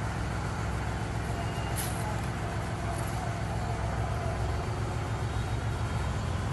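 John Deere 5310 CRDI tractor's common-rail diesel engine idling steadily, with one short click about two seconds in.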